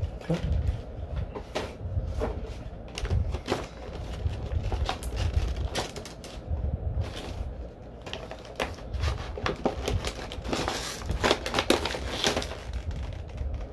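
Action-figure packaging being opened by hand: irregular crinkling, clicking and rustling of cardboard and plastic, busiest near the end.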